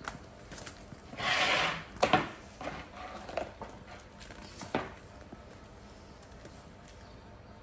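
Large wicker basket scraping and knocking on a concrete floor as a baby monkey climbs into it and tips it: a rough scrape about a second in, then two sharp knocks and a few lighter taps, with one more knock near the halfway point.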